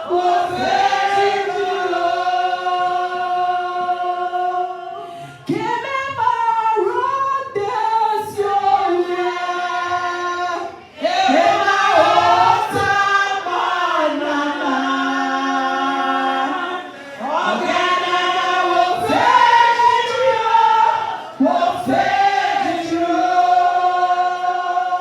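A choir singing a slow worship song with long held notes, in phrases of about five to six seconds with short breaks between them.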